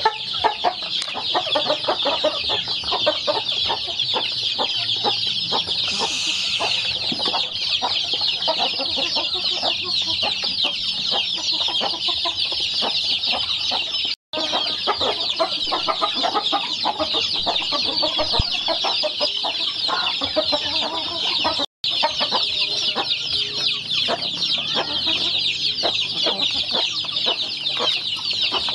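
A crowd of chicks and ducklings peeping constantly in a dense, high-pitched chorus as they feed, with lower calls mixed in. The sound cuts out briefly twice.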